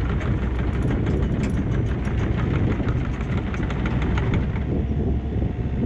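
Mini excavator's diesel engine running steadily while the machine swings a log held in its bucket, with rapid light clicking and clattering that stops about four and a half seconds in.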